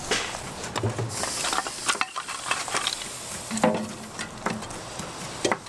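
Handling of meat skewers and a charcoal fire: scattered sharp clicks and knocks over light sizzling and crackling.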